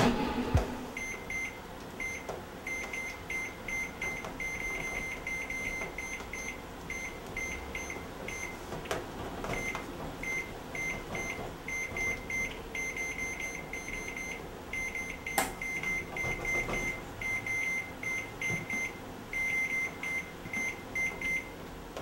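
Samsung microwave oven keypad beeping as its buttons are pressed over and over: dozens of short, high beeps in quick runs with brief gaps between them. One sharp click sounds about fifteen seconds in.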